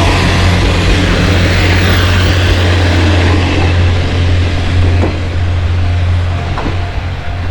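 A train running close by: a loud steady rushing noise over a low, even engine drone, with a couple of faint knocks in the second half.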